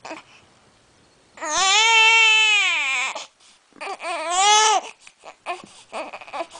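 Baby crying: one long wail about a second and a half in that drops in pitch as it ends, a shorter cry after it, then a string of short, choppy sobbing breaths.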